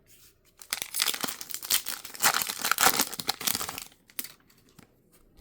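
Foil booster pack wrapper crinkling and tearing as it is opened, a dense run of crackling for about three seconds, then lighter handling rustles.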